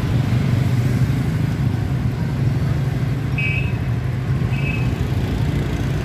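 Motorbike engine running steadily amid street traffic noise. Two short, high beeps come about a second apart in the middle.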